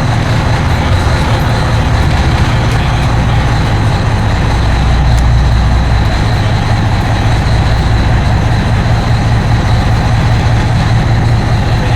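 Fishing party boat's engines running steadily as it gets under way: a loud, continuous low rumble with a broad hiss over it.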